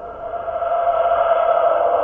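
A creature sound effect: a hissing, echoing drone with a held tone that swells about half a second in and stays loud.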